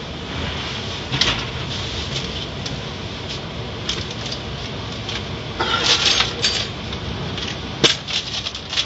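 Automatic car wash running: a steady hiss of water spray with irregular sharp clicks and clatters, the loudest near the end.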